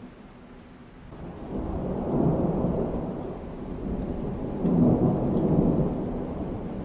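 Rolling thunder: a low rumble that builds about a second in and swells twice, around two seconds and again around five seconds in.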